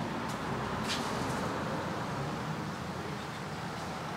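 Steady outdoor background noise with two faint, brief clicks in the first second.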